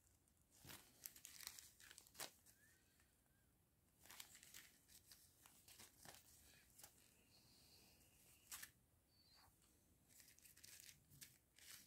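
Faint crinkling and rustling of small plastic zip bags of diamond-painting rhinestones being handled, in short bursts with pauses between them.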